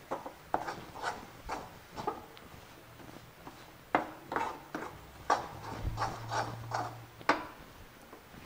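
A steel spoon stirring and scraping a thick wheat-flour, sesame and ghee mixture around an aluminium kadhai, about two strokes a second, with a few sharp clinks of spoon on pan. The stirring stops about three-quarters of the way through.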